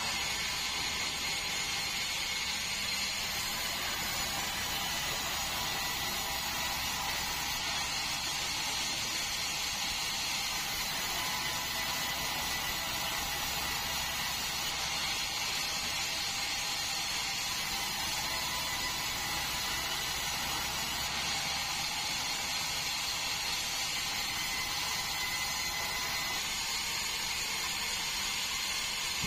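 Sawmill band saw running steadily through a large meranti log: a constant hiss with a high, steady whine.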